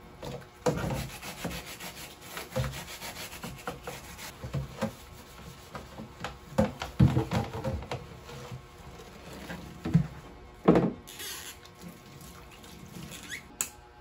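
A clear plastic container being scrubbed by hand in a stainless steel sink: a run of short rubbing and scraping strokes, with a few louder knocks of the container against the sink in the second half.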